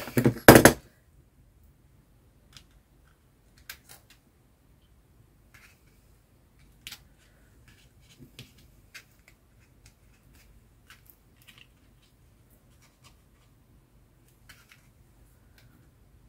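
Scissors snipping Christmas card stock and card cutouts being handled on a desk: two sharp loud snaps just after the start, then scattered light clicks and rustles.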